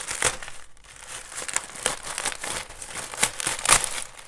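Plastic courier mailer bag and the plastic-wrapped package inside crinkling and rustling as they are handled and opened, in irregular bursts that are loudest near the end.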